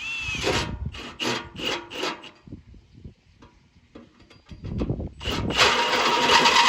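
Hand tool scraping on metal in rhythmic back-and-forth strokes, about two a second like sawing or filing, then faint ticks, then a longer dense scrape near the end.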